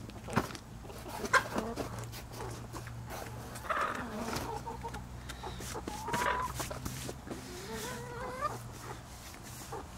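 Backyard hens clucking, several short calls a couple of seconds apart, with a few sharp taps, the loudest about a second and a half in.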